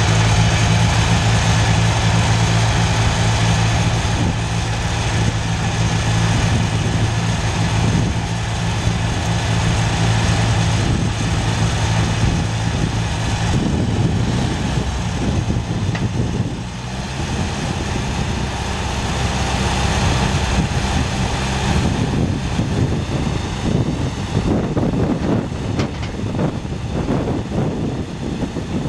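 Massey Ferguson 135 tractor engine running steadily while the front loader is raised. Its note changes about halfway through and turns rougher in the last third.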